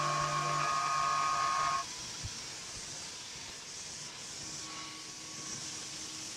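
A Tormach PCNC 1100 CNC mill side-milling an aluminium plate with a half-inch three-flute carbide rougher at 2800 RPM: a steady cutting whine with a low hum under it. About two seconds in, the end mill clears the edge of the plate and the cutting tone stops, leaving the spindle running and a steady hiss from the coolant mist.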